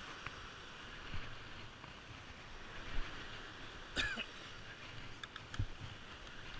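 Steady wash of surf with wind on the microphone, broken by a few light knocks from handling the spinning rod and reel and a brief cough-like sound about four seconds in.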